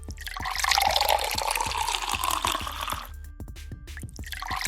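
Tea being poured, a liquid running and splashing for about three seconds, then starting again near the end, over background music with a steady beat.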